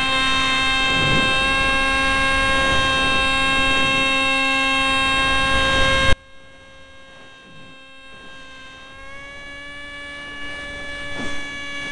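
Electric motor and propeller of a small foam RC F-22 model jet, heard from a camera on board: a steady whine with a rush of air behind it. About six seconds in the throttle is cut sharply and the whine drops to a faint hum, then it builds back up and rises a little in pitch near the end.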